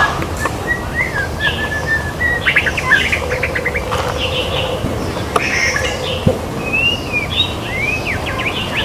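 White-rumped shama singing a varied song: a string of clear short whistles, a fast run of sharp notes, then rising and falling whistles near the end, with a steady low hum under it from about three seconds in.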